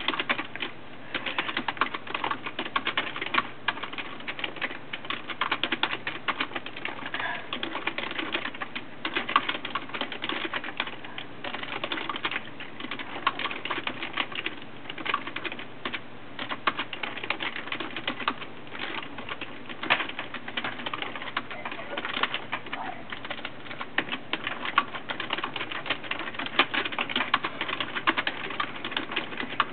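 Typing on a computer keyboard: quick, irregular key clicks in runs with short pauses.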